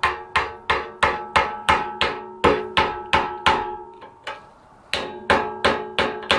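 Hammer striking a screwdriver set in the notches of a Kawasaki KZ400's steering stem nut, driving the nut tight. Sharp metallic strikes come about three a second, each with a short ring, with a brief pause just past halfway.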